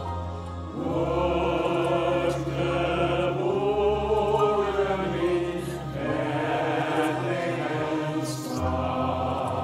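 Combined church choir singing a Christmas carol medley in held phrases over steady low accompaniment, a new phrase starting just under a second in and another at about six seconds.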